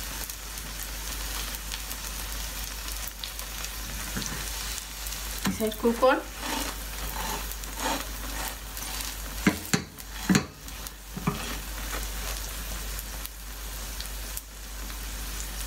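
Paratha frying in oil in a non-stick pan with a steady sizzle. Near the middle come a few sharp knocks as a silicone spatula presses the bread against the pan.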